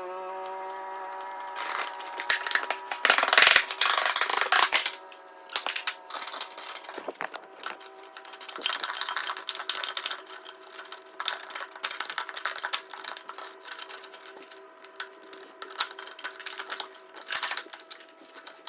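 Irregular clattering, clicking and rattling of parts and tools being handled while working on a snowmobile, loudest a couple of seconds in, over a steady hum.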